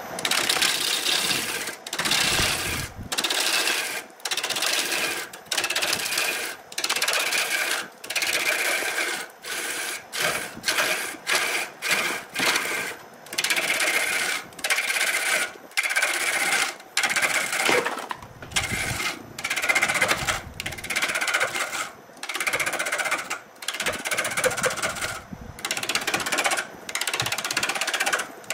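Wood lathe with a hand-held steel turning tool cutting into a spinning wooden blank: a scraping cut in short passes, about one a second, each broken by a brief pause as the tool lifts off.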